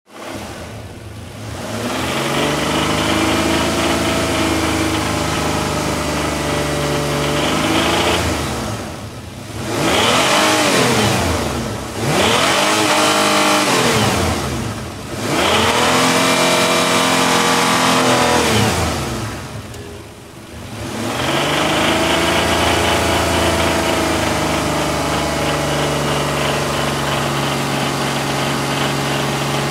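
Isuzu 6VE1 3.5-litre V6 engine idling, revved up and back down several times in the middle, then settling to idle again. The owner presents it as a knocking engine at 82,000 miles.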